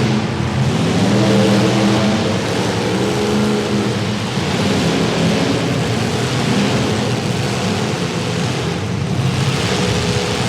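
Several demolition derby cars' engines running and revving together, their pitches rising and falling over each other, over a steady background noise.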